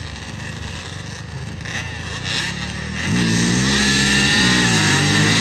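Off-road ATV and three-wheeler engines drag racing across sand. The engines are faint at first. About three seconds in, a much louder engine note comes in, its pitch rising and dipping as it revs.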